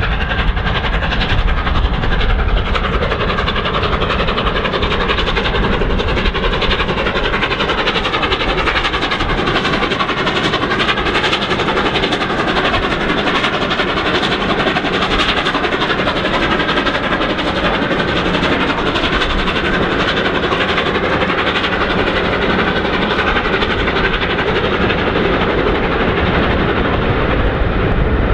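Steam locomotive 60163 Tornado, an LNER Peppercorn A1 Pacific, hauling a passenger train at speed: a loud, steady running noise that neither builds nor fades.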